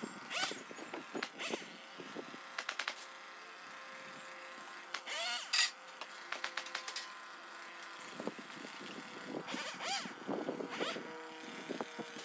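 Chainsaw revving in short bursts, its pitch rising and falling again and again over steadier running, in sped-up footage.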